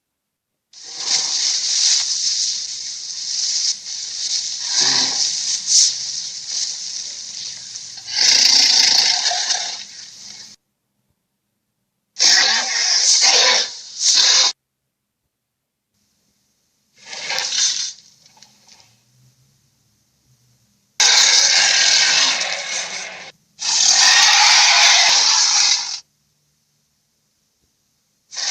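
Sound effects for an invented creature, the skunkosaurus: a series of harsh, hissing calls, the first about ten seconds long and the rest one to three seconds each, with dead silence between them.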